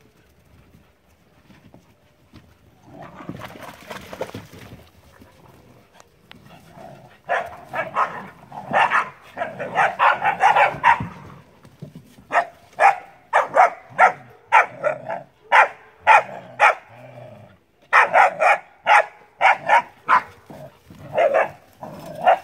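Puppies barking: after a few quiet seconds, a run of short barks starts and comes about two a second, with a brief pause near the end.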